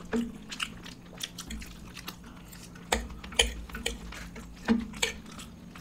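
People chewing food with scattered short wet clicks and a few soft knocks, the ordinary sounds of eating at a table.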